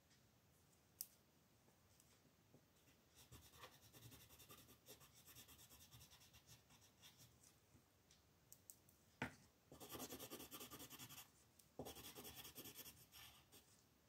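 Soft colouring strokes on paper: a pen tip scratching rapidly back and forth in short spells, with a sharp click a little after the middle.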